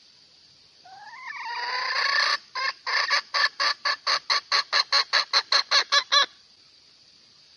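Hen cackling: a drawn-out rising squawk starting about a second in, then a fast even run of short clucks, about five a second, that stops abruptly. A hen's cackle, which the uploader takes as her calling for a rooster.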